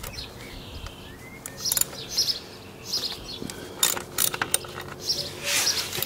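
Scattered light metallic clicks and clinks from a socket wrench on a motorcycle's sump drain plug as the plug is cracked loose and unscrewed, with birds chirping in the background.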